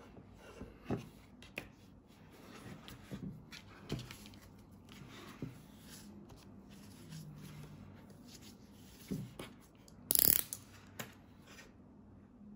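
Quiet handling sounds of a phone, a utility knife and a tissue on a hard tabletop: scattered small clicks and taps, some soft rubbing of a tissue over the screen, and one brief louder rustle or scrape about ten seconds in.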